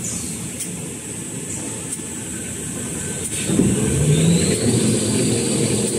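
Paper towel production line running, its large rollers turning with a steady mechanical rumble. About three and a half seconds in the noise grows louder, and a high whine rises briefly and then holds.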